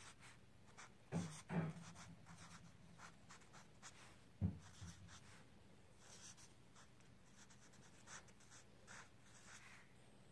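Dry-erase marker writing on paper: faint, short scratchy strokes as letters are formed, with a few louder soft knocks about a second in and again near the middle.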